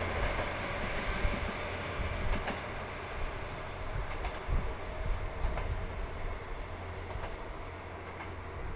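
KTR001 'Tango Explorer' diesel railcar running along the track, a steady rumble with faint wheel clicks over rail joints every second or so, slowly fading.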